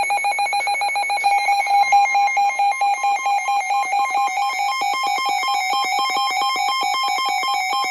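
Electronic weather alert tone for a severe thunderstorm warning: a loud warble of two pitches alternating rapidly, several times a second, without a break.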